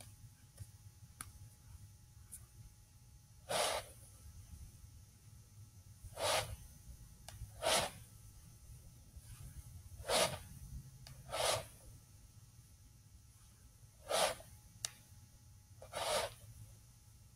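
A man's short, forceful exhalations, seven in all, a second or two apart, breathed out with the strikes of a Wing Chun form.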